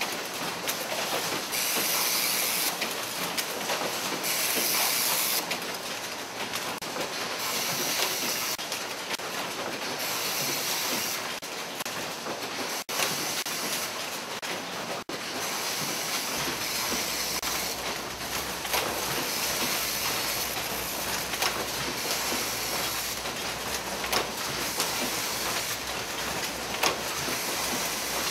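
Automatic disposable-needle assembly machine running: a steady mechanical clatter with bursts of compressed-air hiss that come and go every second or two. A low hum joins about halfway through.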